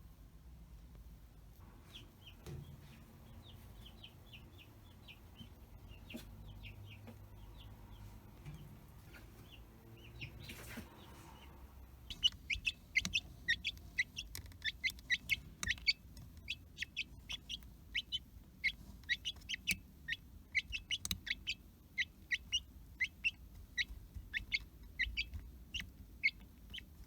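Newly hatched domestic chick peeping: soft short high peeps at first, then from about twelve seconds in a fast, louder run of sharp peeps, several a second.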